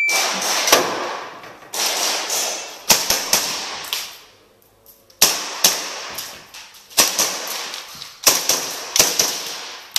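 A shot timer's beep, then a Tokyo Marui Hi-Capa 4.3 gas blowback airsoft pistol fires a run of sharp shots, mostly in quick pairs or threes, with a short pause about four seconds in.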